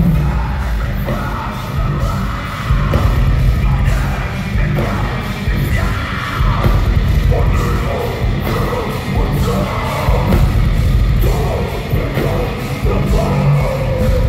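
Heavy metal band playing live at full volume: distorted guitars, heavy bass and drums, with the singer singing and yelling over them, heard from within the arena crowd.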